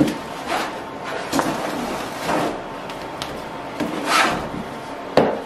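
Cardboard shipping box and bubble wrap being handled as a wrapped wooden sign is slid into the box: a series of short rubbing, sliding swishes, the loudest about four seconds in, and a knock near the end.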